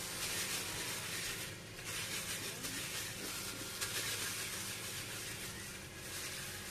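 Disposable plastic gloves crinkling and rustling as gloved hands roll a small ball of soft cookie dough between the palms.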